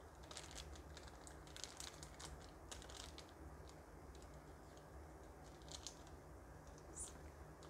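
Faint crinkling and light clicking of a plastic spice sachet being handled while a measuring spoon scoops powder from it, the clicks thickest in the first three seconds and sparser after, over a faint low hum.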